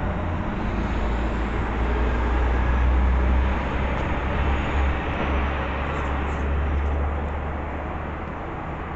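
Low rumble of a passing vehicle, swelling to its loudest about three seconds in and easing off toward the end.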